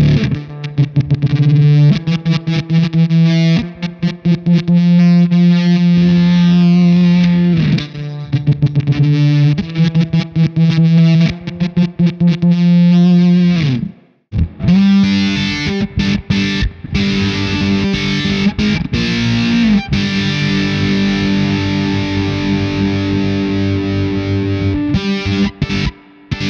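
Electric guitar with humbucker pickups played through a Fender Shields Blender fuzz pedal. The first half has held fuzzed notes with a choppy, sputtering attack and notes sliding down in pitch. After a brief break about halfway, a slide up leads into a long sustained fuzz chord.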